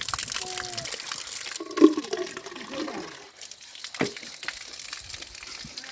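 Water running, a bright hiss that stops after about a second and a half, followed by a sharp knock a couple of seconds later.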